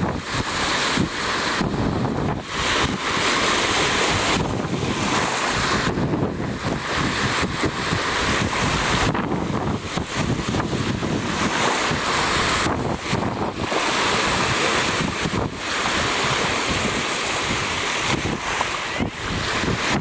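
Sea surf washing onto a beach, its hiss swelling and fading every few seconds, with wind buffeting the microphone in a low rumble.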